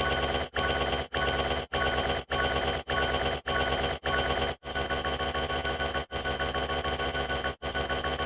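A dense jumble of layered sound effects with ringing, alarm-like tones, chopped by brief silent gaps about twice a second, then spaced further apart, about every second and a half, from a little past halfway.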